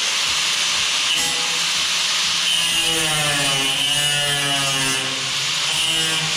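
Power cutting tool running steadily as it cuts out rusted sheet steel of a car's front quarter panel.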